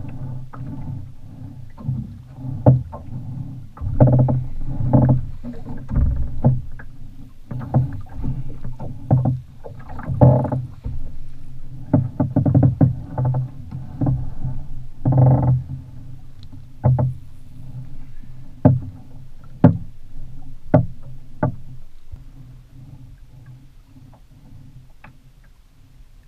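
Small water slapping against a flats skiff's hull in irregular thumps over a steady low hum, with a few sharp clicks about two-thirds of the way through; it quietens near the end.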